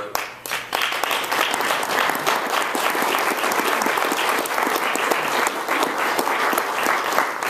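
Audience applauding, many hands clapping together at a steady level.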